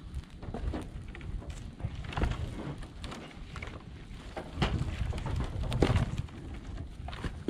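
Dry branches being tossed onto a brush pile, rattling and thudding at irregular intervals, busiest and loudest a little past the middle. Wind buffets the microphone underneath.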